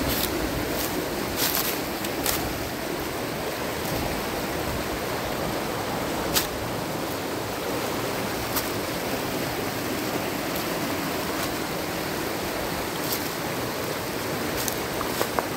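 Shallow mountain stream rushing and splashing over rocks in a steady hiss of water. A few sharp clicks stand out now and then.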